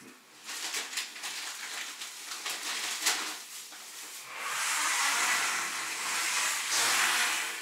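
Plastic grocery bag and packaging rustling and crinkling as items are pulled out, with crisp crackles in the first half, then a steadier rustle.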